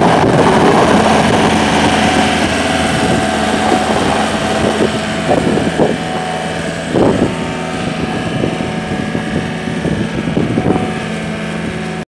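Yanmar 3.3 L four-cylinder diesel engine of a 2014 Gehl R190 skid steer running steadily. It eases slightly about four seconds in, and a few short knocks come past the middle.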